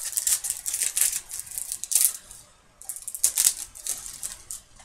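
Clear plastic crinkling and rustling as it is handled, in two spells of quick, crisp rustles, with a short pause at about two seconds in.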